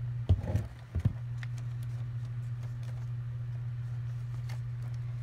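Steady low hum of a running Scotch thermal laminator together with a room fan. Two knocks come in the first second, followed by faint clicks as the plastic laminating pouch is handled at the feed slot.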